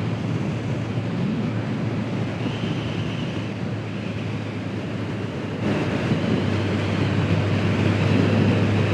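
Wind noise rushing over the microphone on a moving motorcycle, with the Honda CB750 Nighthawk's inline-four engine running as a steady low drone underneath. A little past halfway the wind and engine get louder.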